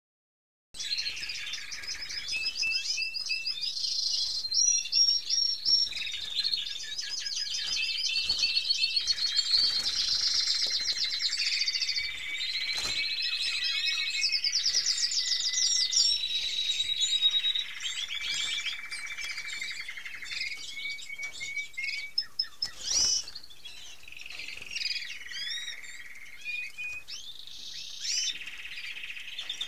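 Domestic canaries singing: a continuous rolling song of rapid trills and repeated chirping notes, starting about a second in and growing somewhat quieter in the second half.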